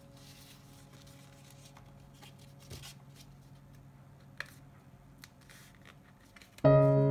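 Soft rustling and a few light taps of a sheet of paper being creased and folded by hand. A held background-music chord fades out early, and piano music comes in loudly near the end.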